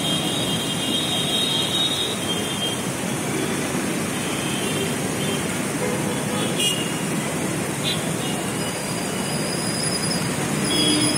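Steady rush of an artificial rock waterfall splashing into its pool, mixed with road traffic noise. A horn toots during the first couple of seconds.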